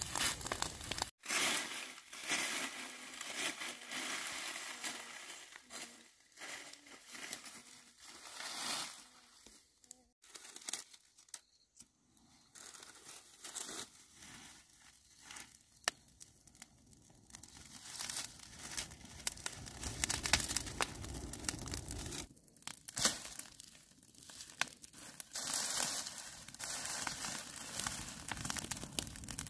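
Dry grass and dead stalks rustling, crunching and crackling as they are raked, dragged and pushed into a pile, broken by a few abrupt cuts. Near the end the dry pile is catching fire.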